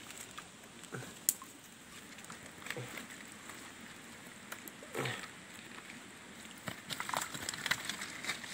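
Faint running water in a shallow stream, with scattered small clicks and splashes as a fishing net is handled in it; one sharp click about a second in.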